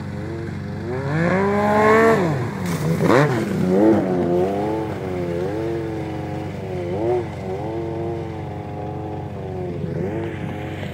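Snowmobile engine revving up and down again and again as the sled works through the ditch, with the sharpest climb and drop in the first few seconds. A steady low drone runs underneath.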